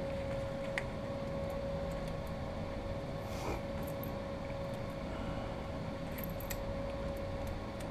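A few faint, sharp metallic clicks of .22 rimfire cartridges being handled and pushed one by one into a revolver's cylinder, over a steady hum.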